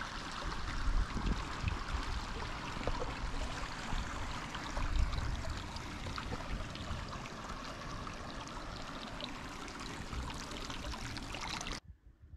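Creek water flowing steadily, with a couple of low thumps; the sound cuts off abruptly near the end.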